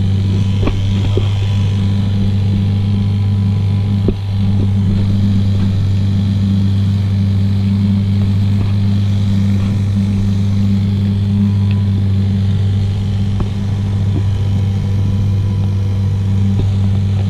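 Small outboard motor running at a steady speed, driving an inflatable boat, with a low, even drone over the rush of water past the hull. The drone dips briefly about four seconds in.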